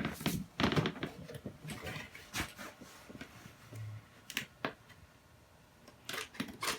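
A camcorder's cardboard box being opened and its packaging handled: irregular clicks and knocks, quieter for a couple of seconds in the second half.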